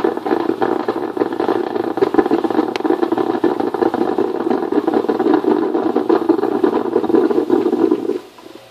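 Drip coffee maker brewing: a steady rumbling gurgle from the heater pushing water up, which stops suddenly near the end, leaving a faint hiss.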